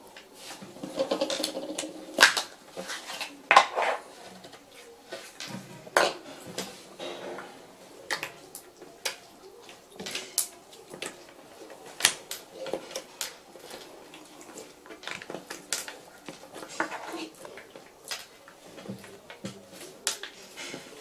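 Fingertips pressing and poking clear slime on a tabletop, making irregular sticky clicks and small pops, a few of them sharper and louder than the rest.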